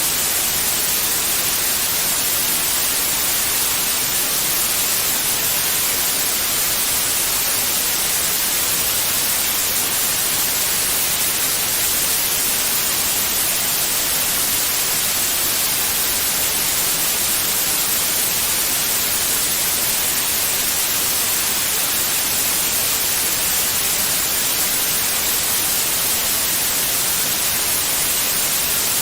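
Steady, unchanging white noise: an even hiss with the most energy in the high frequencies.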